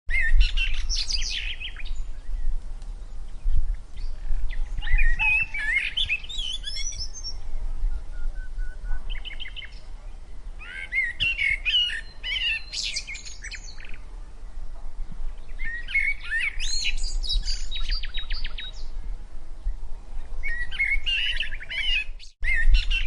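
A songbird singing in short, varied, warbling phrases every few seconds, with pauses between, over a steady low rumble.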